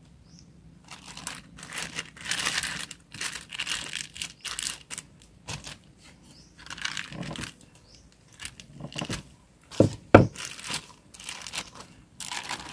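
Clear plastic bag crinkling and rustling in short bursts as hands fold and smooth it over a banana on a wooden cutting board. A couple of dull thumps come about ten seconds in, the loudest sounds, as the banana is pressed flat through the plastic against the board.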